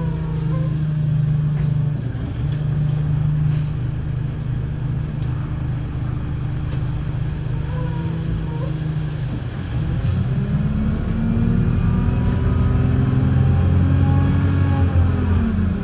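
Wright Streetlite single-deck bus's diesel engine idling steadily, then from about ten seconds in revving up and getting louder as the bus pulls away, its note rising and dipping briefly near the end.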